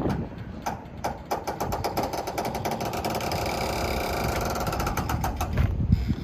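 Fast metallic rattling, a quick run of clicks from about a second in until near the end, from the barge's wheeled gangway ramp rolling back and forth in the wind.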